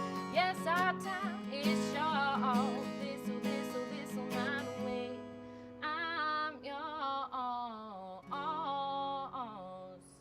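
A woman singing to acoustic guitar, a wavering melody over held chords; the song fades out near the end.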